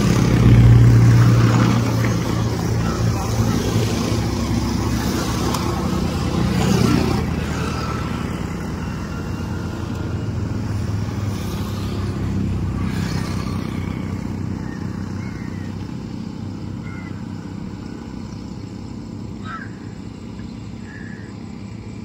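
Motor vehicle engine running close by, loudest about a second in and then slowly fading away.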